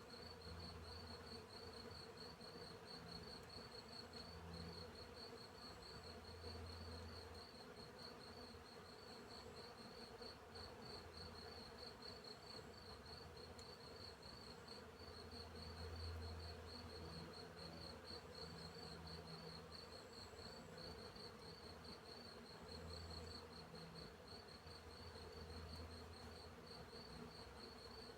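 Faint field insects: a cricket chirping in a steady, regular pulse, with bees buzzing low, their hum coming and going every few seconds as they fly past.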